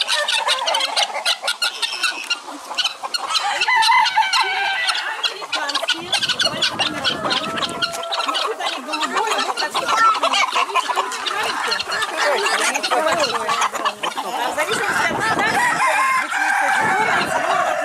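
A crowded poultry yard of chickens, including Dutch white-crested chickens, and helmeted guineafowl, clucking and calling over one another without a break.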